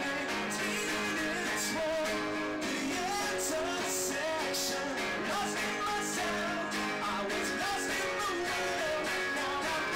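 Live acoustic rock song: a man singing over strummed guitars.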